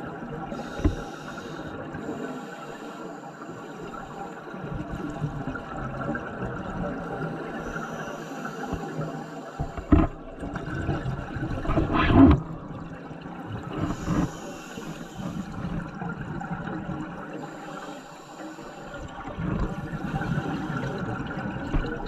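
A scuba diver breathing through a regulator, heard underwater: a brief high hiss on each inhale about every six seconds, and rushing, gurgling bubbles on each exhale. The loudest bubble burst comes about ten to twelve seconds in.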